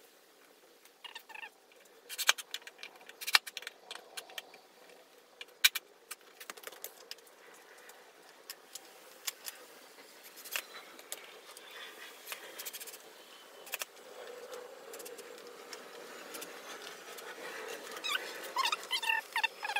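Scattered clicks, knocks and rattles of a standing-desk steel frame being screwed to its particleboard top with a cordless drill. Near the end, plastic packaging rustles.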